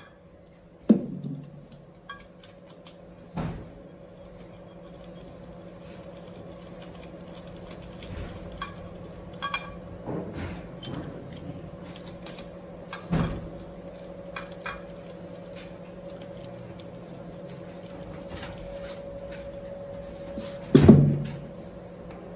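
Compression tester hose and metal screw-in adapter being handled against a bare engine block: scattered light metallic clicks and rattles, with a few sharper knocks, the loudest near the end. A steady low hum runs underneath.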